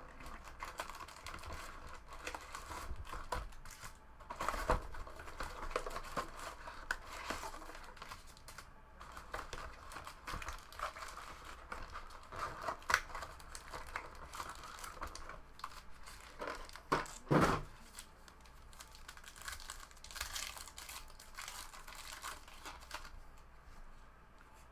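Plastic wrapping crinkling and tearing as a box of trading cards and its packs are ripped open, with scattered small clicks and rustles of handling.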